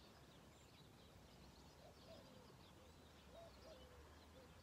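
Near silence: faint outdoor background with distant birds chirping.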